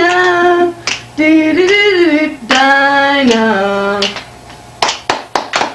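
A woman singing a few long held notes, then, about a second before the end, a quick, even run of sharp hand snaps at roughly four to five a second.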